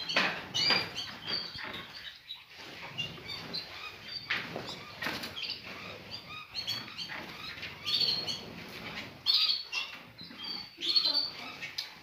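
A flock of small caged songbirds chirping in many short, high calls, mixed with brief wing flutters.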